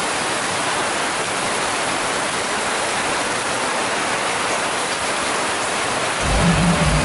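Rain falling steadily onto flooded ground and plastic tarpaulins, an even hiss of rain. About six seconds in, a low bass sound comes in under it.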